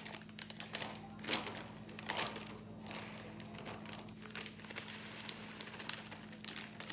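Plastic packages of shredded cheese crinkling on and off as they are handled and put in a fridge drawer, louder about one and two seconds in.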